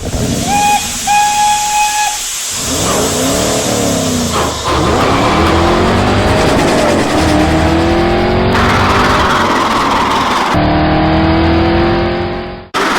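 A steam locomotive whistle blows twice, then race-car engines rev, their pitch swinging up and down and climbing in long rising whines, over a steady roar that changes abruptly a few times.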